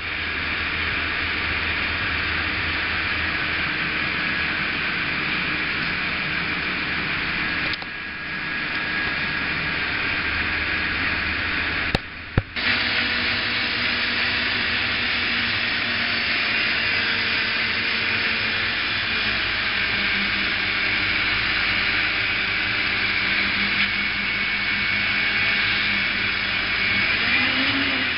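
Truck-mounted crane's engine running steadily, a continuous mechanical drone with hiss, broken briefly about 8 seconds in and again around 12 seconds.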